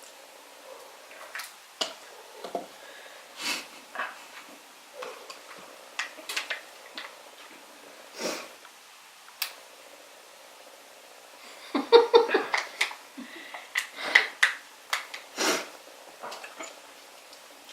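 Scattered clicks, taps and crinkling as plastic Easter eggs and food wrappers are handled and opened, busiest and loudest for a few seconds past the middle.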